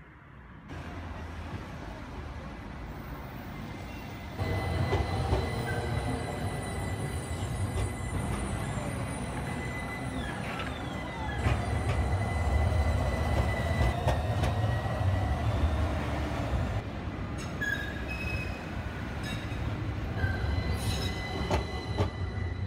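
AnsaldoBreda Sirio low-floor tram running past close by on street track: a low rumble of wheels on rails under a steady high whine, with a few short sliding tones near the middle and sharp clicks near the end.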